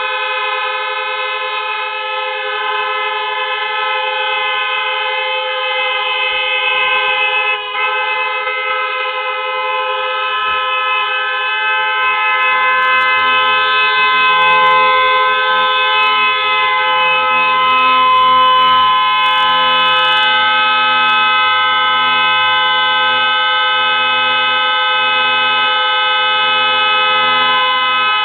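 Several car horns held down together in one unbroken chorus of overlapping steady notes. A lower note joins about a third of the way in, and the sound grows a little louder soon after.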